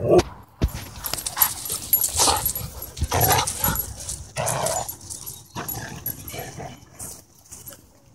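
Dogs, huskies among them, barking and yipping in short bursts, about one a second, dying down near the end.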